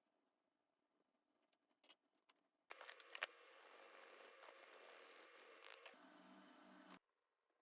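Frying pan sizzling with scattered crackles, starting suddenly about three seconds in and cutting off abruptly near the end, with a low hum under it in its last second.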